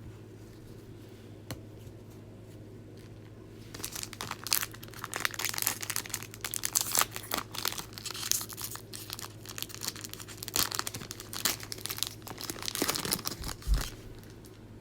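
NBA Hoops trading card pack wrapper torn open and crinkled. The irregular crackling starts about four seconds in and goes on for some ten seconds.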